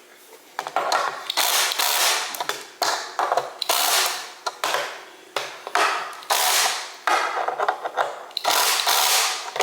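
Screws being driven into flat-pack furniture during assembly: a tool working in eight or nine short, noisy bursts, each starting sharply and fading over up to a second.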